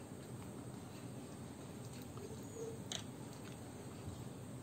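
Quiet eating sounds: soft chewing and fingers working rice on a plate, with small clicks and one sharper click about three seconds in, over a steady background hiss.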